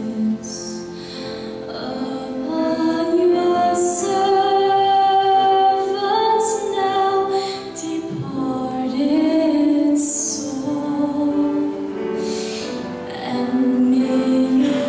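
Hymn singing led by a woman's voice, with held, slowly gliding sung notes.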